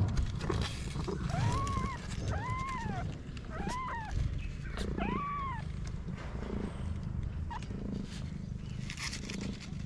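Newborn kittens mewing: four short, high, rising-and-falling cries about a second apart, over a low steady rumble.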